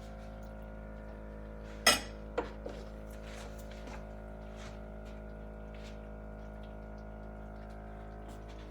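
Dishes and cutlery clinking as food is served onto a plate: one sharp clink about two seconds in, two lighter ones just after, then faint scattered clatter, over a steady background hum.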